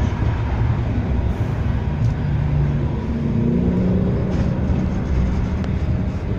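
Blackpool tram no. 715 running along its track, heard from inside the passenger saloon: a steady rumble, with a motor whine that rises in pitch about halfway through and a few faint clicks.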